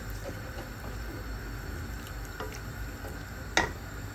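A pot of dried-fish and shrimp curry bubbling over a gas burner while a wooden spatula stirs it, with faint scrapes and one sharp knock of the spatula against the pot about three and a half seconds in.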